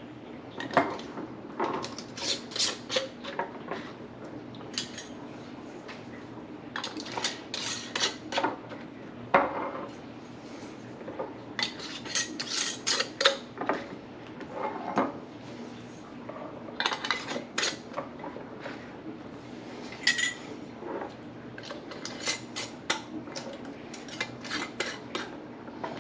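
Metal screw bands being twisted onto glass canning jars and tightened finger tight: runs of quick clicks and scrapes as the bands turn on the threads, with the jars clinking as they are handled. The bursts come in clusters every few seconds, one jar after another.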